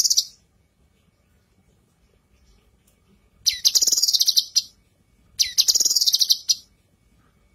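Female cucak kinoi calling: two fast, high, chattering trills of about a second each, a couple of seconds apart. The tail of a third trill falls right at the start.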